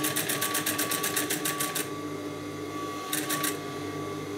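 Industrial sewing machine stitching a cap's visor seam through thick winter fabric, a fast even ticking about nine stitches a second. It runs for about two seconds, stops, then runs again briefly, with a steady motor hum throughout.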